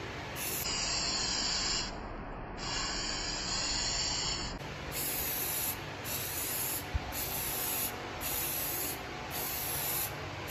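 Aerosol spray-paint can (Rust-Oleum) hissing in repeated bursts. Two longer sprays of one to two seconds come first, then about six short sprays under a second each.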